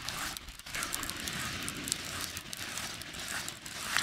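Fishing reel being wound in under the weight of a hooked fish, a faint uneven crackling rattle, with wind buffeting the microphone.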